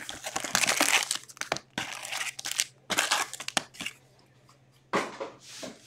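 Hockey card pack wrappers being torn open and crinkled, in several short bursts with a brief lull about four seconds in.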